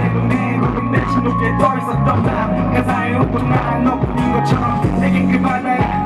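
Boy group singing a pop ballad into handheld microphones, with a backing track carrying a steady drum beat, all amplified through the stage PA.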